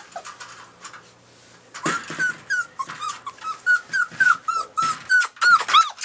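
Five-week-old Standard Poodle puppy whimpering in quick, high-pitched cries, several a second. The cries thin out briefly about a second in, then carry on steadily.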